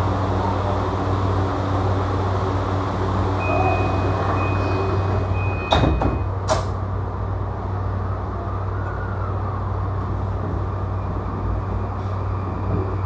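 JR E235-series commuter train running, heard inside the car: a steady low running hum and rolling noise. A thin high tone sounds for about two seconds, then two sharp knocks come close together about six seconds in.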